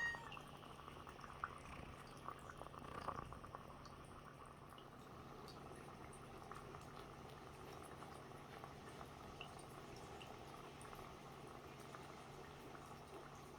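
Dry ice bubbling and fizzing faintly and steadily in water, with scattered small crackles and a few louder ticks in the first few seconds. A cat gives one short rising meow right at the start.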